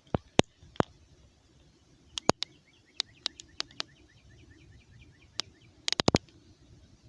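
Scattered sharp clicks and taps, the loudest about half a second in and a quick cluster of four about six seconds in. In the middle, a faint rapid trill of short bird chirps sounds behind them.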